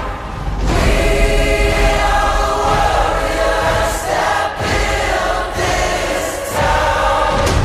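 Choral music: a choir singing long held chords over a low rumble.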